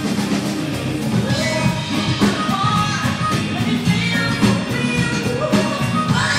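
Live band playing an upbeat Latin jazz–funk number, with drum kit, congas, electric guitar, bass guitar and keyboard, and a woman singing over it.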